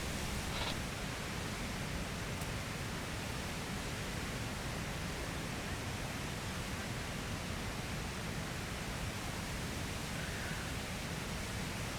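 Steady rushing roar of a waterfall, an even noise with no breaks or rhythm.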